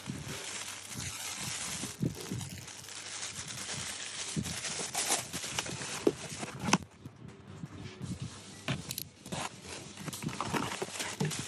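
Packaging being handled: rustling plastic wrap and cardboard, with scattered sharp clicks and knocks as a cardboard box is moved about, and near the end a utility knife slitting the tape on the box.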